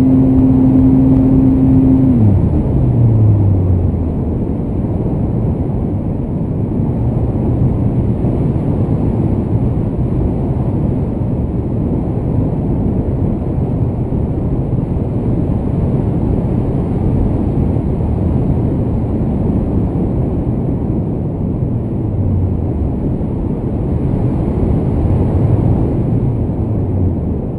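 Onboard sound of an EasyStar foam model plane in flight: its electric motor and propeller hum steadily, then about two seconds in the throttle comes back and the pitch falls away. Rushing wind noise over the airframe follows as the plane glides, with a faint low motor hum coming back near the end.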